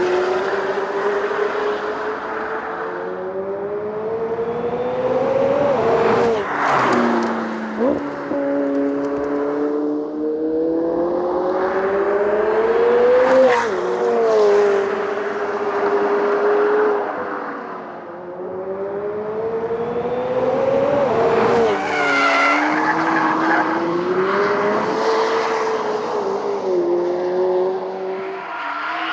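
McLaren 765LT's twin-turbo V8 accelerating hard, its pitch climbing and dropping sharply at each upshift every several seconds, with a downshift and throttle blip partway through. Tyres squeal in the later part as the car slides.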